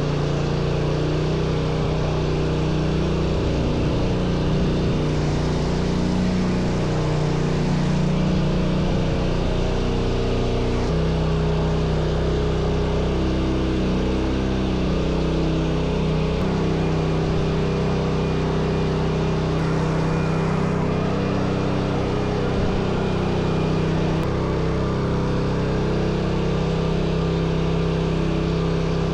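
Engine running steadily at an even level. Its pitch shifts slightly a few times, about a third and halfway through and again near the end.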